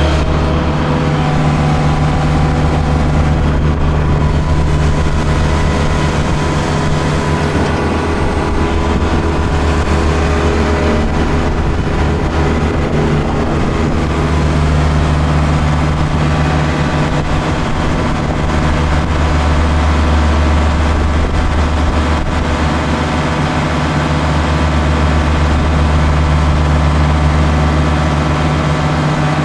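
Kubota L1-452 tractor's diesel engine running steadily under load, driving a Trimax Pro-Cut S4 mower, heard from the operator's seat.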